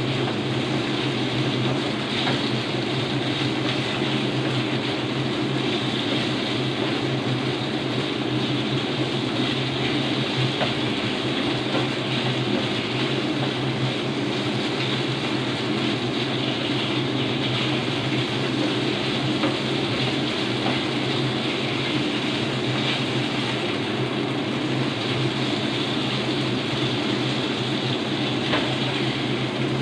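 Sliced beef sizzling in a non-stick frying pan as it is stir-fried with a spatula, with a few light scrapes, over a steady low hum.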